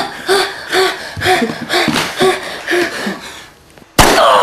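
A woman's short, strained gasping cries, about two a second, as she is held down and struggles for breath. Near the end comes a sudden loud bang, followed by a loud cry.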